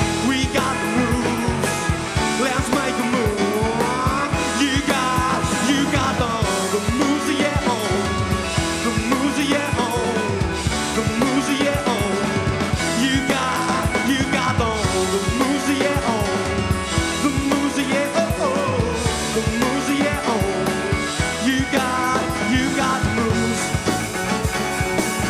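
Live rock band playing a song: electric guitar, bass and drum kit, with a singer.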